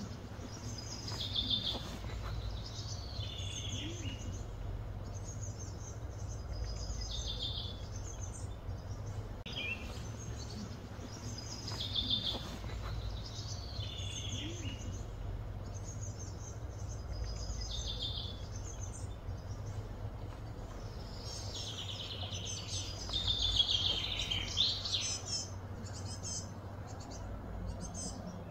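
Birds chirping in short, repeated high phrases, with a denser run of calls near the end, over a steady low hum.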